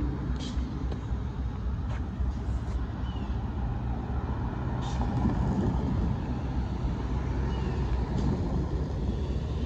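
Low, steady rumble of motor vehicles at a railroad grade crossing, growing louder around the middle as a car drives past over the tracks, with a few short clicks.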